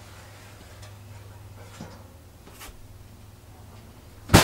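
Faint clicks over a low steady hum, then a single sharp metal clank near the end as a cookie sheet of mini springform pans is pulled out of the oven.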